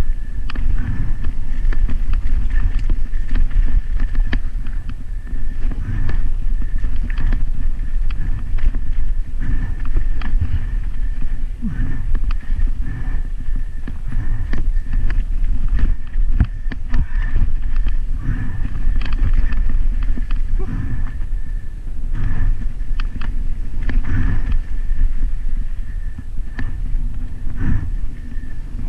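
Mountain bike descending a rocky dirt trail: tyres crunching over stones and roots, with constant irregular rattling and knocking from the bike, over a steady low rumble.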